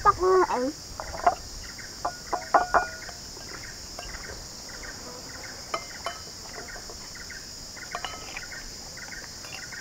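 Steady high-pitched chorus of insects, such as crickets, droning evenly throughout, with a few short, louder pitched sounds in the first three seconds.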